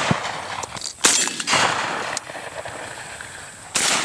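Two shotgun shots fired at passing doves, one about a second in and one near the end, each fading out over about half a second.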